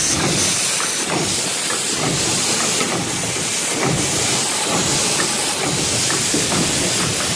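Commutator welding machine at work, a steady loud hiss with a few faint clicks running through it.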